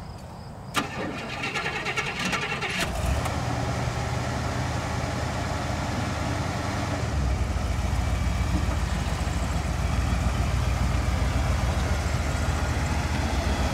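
Fuel-injected 500 cubic-inch V8 of a 1976 Cadillac Mirage starting: after a click, the starter cranks for about two seconds before the engine catches and settles into a steady idle. A few seconds later the engine runs a little louder as the car pulls away slowly.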